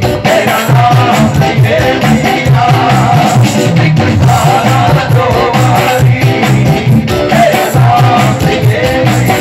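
Loud live devotional music, an instrumental passage with a steady rhythmic beat and a held melody line.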